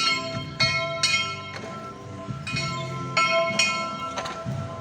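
Church bell rung by pulling its rope, the clapper striking in clusters: three strokes in the first second, then two more about three seconds in. Each stroke rings on and fades before the next.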